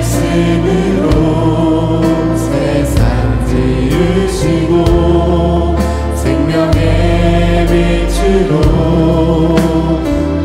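A church praise team of male and female voices sings a worship song in Korean into microphones. A band backs them with keyboard, sustained bass notes and cymbal hits.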